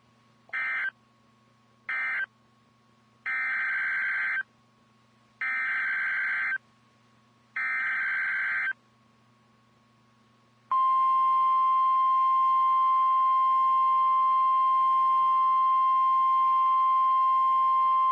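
Emergency Alert System SAME data tones on a NOAA Weather Radio broadcast. First come two short raspy end-of-message bursts that close one tornado warning, then three longer header bursts that open the next. From about eleven seconds in, the steady single-pitch 1050 Hz weather radio warning alarm tone sounds.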